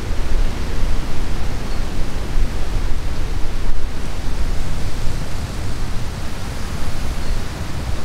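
Wind buffeting the microphone: a loud, steady rushing rumble that wavers up and down in strength.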